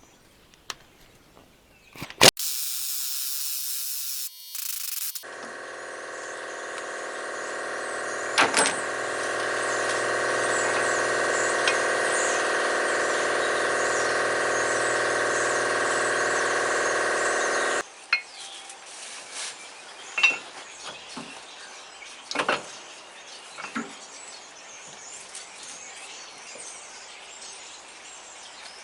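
Air impact wrench running steadily for about twelve seconds, driving the screw of a U-joint press to push out a cap, getting slightly louder before it cuts off sharply. A short hiss of air comes before it, and scattered metal clicks and knocks of tool handling follow.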